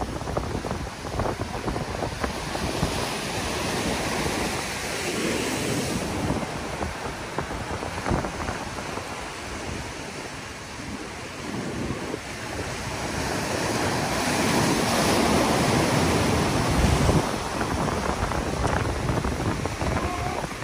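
Ocean surf breaking and washing over a rock ledge, swelling louder past the middle, with wind buffeting the microphone.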